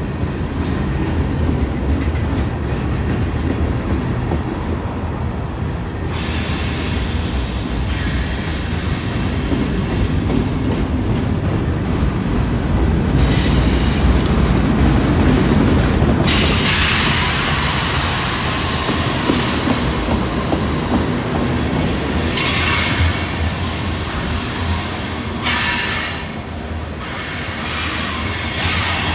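Freight train's boxcars and tank cars rolling past with a steady low rumble. From about six seconds in, the wheels squeal on a curve in high, thin tones that come and go in stretches.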